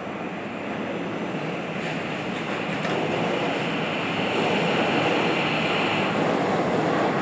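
Seoul Subway Line 2 electric train running through an underground station without stopping, heard behind closed platform screen doors: a rushing rumble of wheels on rails that grows louder as the train comes alongside, with a high hiss over it for a few seconds in the middle.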